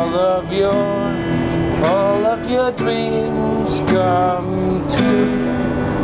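Man singing while strumming an acoustic guitar, with his voice sliding between notes over held chords.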